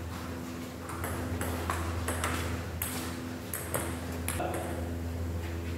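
Table tennis rally: the ball clicks sharply off rackets and the table in quick, uneven succession, over a steady low hum in the hall.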